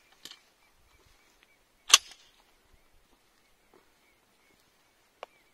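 A single shot from a 20-gauge CBC Mossberg semi-automatic shotgun about two seconds in, loud and sharp with a short ring-out. A shorter sharp click follows near the end.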